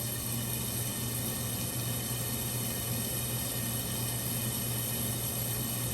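Steady, even hiss with a constant low hum underneath, from chicken searing in a covered pan on the stove along with the kitchen's background hum.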